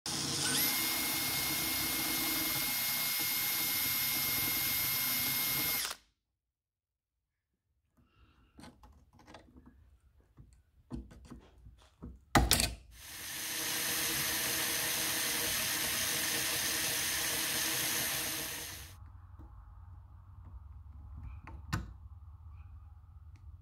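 A small electric power tool's motor running steadily with a high whine for about six seconds, then stopping abruptly. Scattered clicks of metal parts being handled follow, then a sharp metallic knock about twelve seconds in. The tool then runs again for about six seconds.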